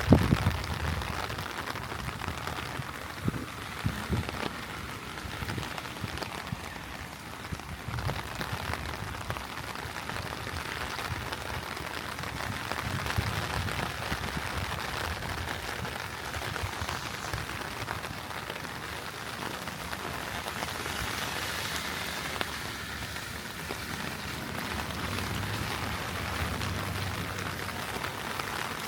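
Heavy rain falling steadily on the street and surrounding surfaces, heard while walking through it, with a few low thumps in the first few seconds.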